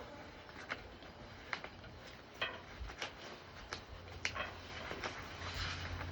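Drawing on paper: a run of short scratchy strokes and small taps of a pen or pencil. A low steady hum comes in about four seconds in.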